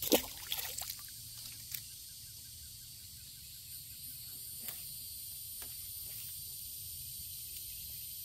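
Insects buzzing steadily at a high pitch, with a sharp knock just after the start and a few lighter clicks and taps scattered through.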